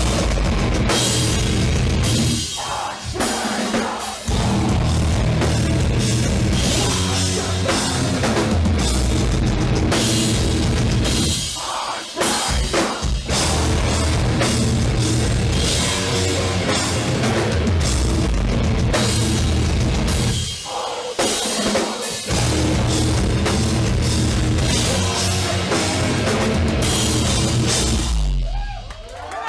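Live metal band playing loud and heavy with a pounding drum kit. The music stops briefly and starts again about three, twelve and twenty-one seconds in, and drops away near the end.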